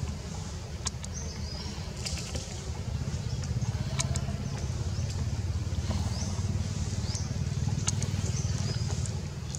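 Outdoor ambience: a steady low rumble that swells a little in the middle, with faint high chirps and sharp clicks scattered through it.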